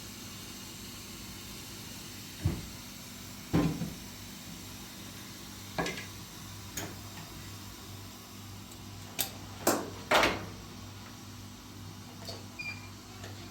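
Seven or so separate knocks and clunks of things being handled, spaced irregularly, with three loud ones close together about nine to ten seconds in, over a steady low hum.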